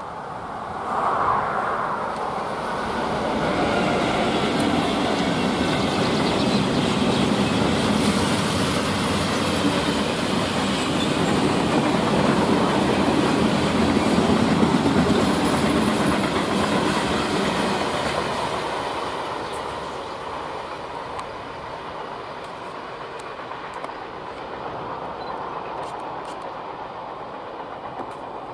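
Long freight train of flat wagons loaded with tanks, hauled by an electric locomotive, passing close by with a steady rumble and wheel clatter. The sound builds over the first few seconds, stays loud for about fifteen seconds, then fades as the train draws away.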